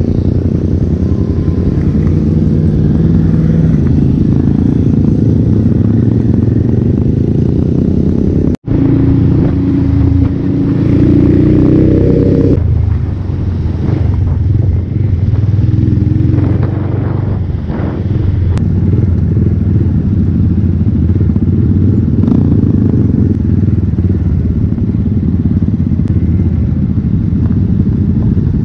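Motorcycles running on the road, heard from a camera on one of the bikes: a steady low engine drone mixed with wind noise. The sound cuts out for an instant about a third of the way in, and a steadier engine note follows for a couple of seconds.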